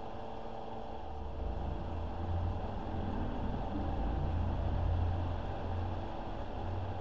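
Electric fan running with a steady hum, and a low rumble that swells about a second in and stays loud through the middle.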